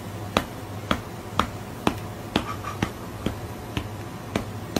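Sharp snaps in an even rhythm, about two a second, over a low steady hum.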